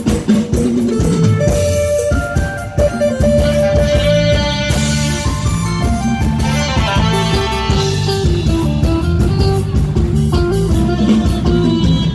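Thai Isan stage-band music playing an instrumental passage without singing: a steady drum beat under sustained melody lines.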